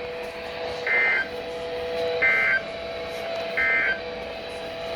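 EAS end-of-message signal: three short bursts of warbling SAME digital data tones, each about a third of a second long and spaced roughly a second and a half apart. A faint steady hum runs underneath.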